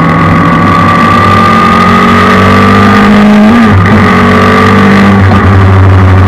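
Suzuki Hayabusa 1300 inline-four motorcycle engine in a race car, heard onboard, running loud at high revs under acceleration out of a corner. The pitch climbs slowly, breaks briefly about three and a half seconds in, then climbs again.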